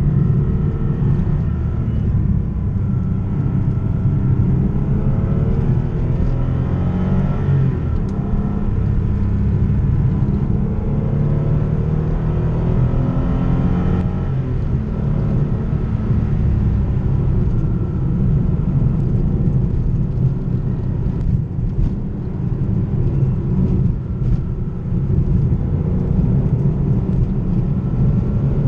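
Porsche 911 964 Carrera 2's 3.6-litre air-cooled flat-six engine under way, its revs climbing and falling several times as the car is driven.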